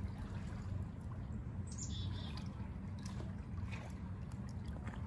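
Pool water lapping and trickling softly as a greyhound paddles slowly through it, over a low steady rumble.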